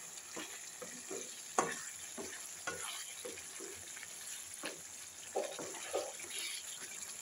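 Wooden spatula stirring a spoonful of sugar into thick paneer kadai gravy simmering in a non-stick kadai, with irregular soft scrapes and knocks against the pan.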